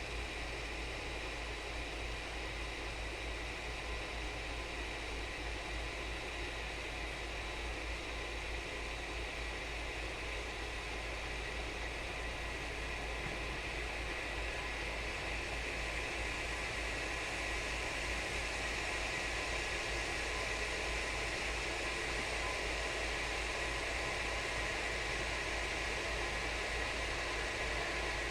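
Tea kettle heating water: a steady hiss that grows a little louder and brighter in the second half as the water heats.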